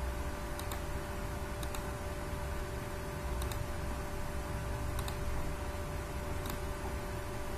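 Computer mouse clicking about five times at uneven intervals over a steady background hum and hiss.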